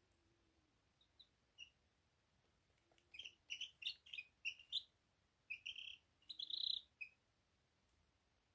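Small birds chirping: two faint short chirps, then a run of quick, high chirps from about three seconds in until about seven seconds. These are calls the owner takes for surprise or fright, likely at hearing another bird.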